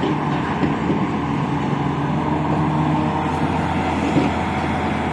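Large diesel engine of a Tata 650 excavator running steadily, a constant engine tone under a dense mechanical din.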